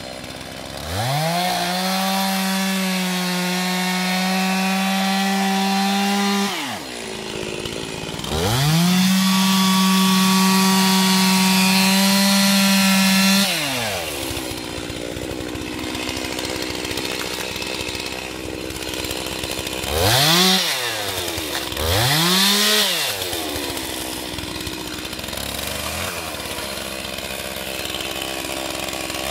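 Stihl MS 362 two-stroke chainsaw cutting a felled log. It runs at a high steady full-throttle pitch for about five seconds, twice, and drops back to idle after each run. It then idles for the rest of the time, with two short blips of the throttle about two-thirds of the way through.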